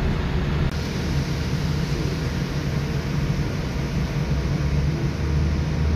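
Steady low rumble and hiss of a Boeing 787-8 taxiing, heard from inside the passenger cabin.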